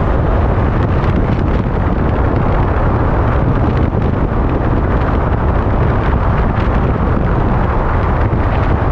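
Wind buffeting the microphone: a loud, steady rushing and rumbling noise.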